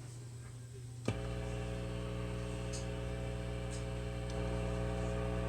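Revv G20 guitar amplifier with nothing plugged into its input putting out a steady hum-like buzz, which jumps louder after a switch click about a second in. The owner calls the amp's noise a horrible loud pulse sound and does not know whether it is normal or a fault in the amp.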